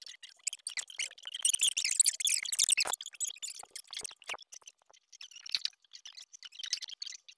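Fingers tapping and rubbing on a tablet's touchscreen: a run of small clicks and scratchy rustling, densest and loudest between about one and three seconds in, then sparser taps.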